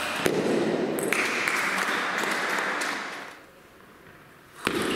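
A table tennis ball is struck once at the very start, then a couple of seconds of spectators clapping and cheering that dies away. Shortly before the end there is a single sharp ping of the ball on the serve.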